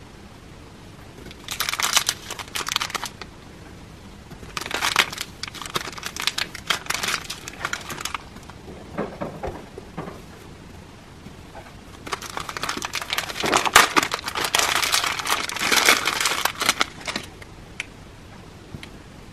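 Plastic piping bag crinkling and rustling in the hands as kinetic sand is squeezed and pulled out of it, in several spells of handling with short pauses between.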